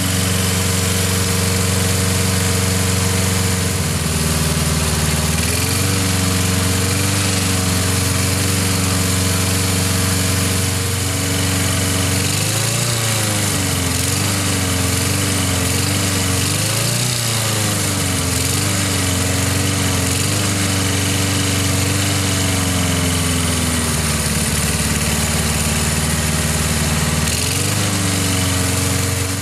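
Briggs & Stratton single-cylinder four-stroke lawnmower engine running steadily through a long warm-up run. Its speed steps up a few seconds in, swings up and down twice around the middle, drops later and picks up again near the end.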